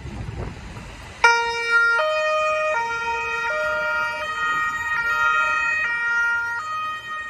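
Carabinieri patrol car's two-tone siren switches on about a second in, after a low rumble. It alternates steadily between a low and a high note, each held for under a second.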